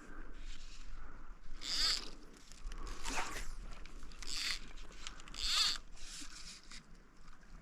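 A series of short zipping swishes, about one a second: fly line being pulled through the rod guides as the angler strips line.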